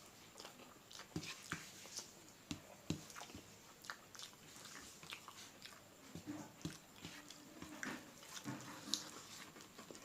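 Close-up eating sounds: chewing and wet mouth smacks and clicks, irregular and several a second, as curry is eaten.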